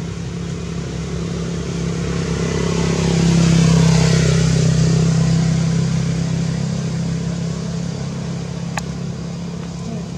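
A motor vehicle's engine passing by: a steady hum that grows louder to a peak about four seconds in, then slowly fades. A single sharp click near the end.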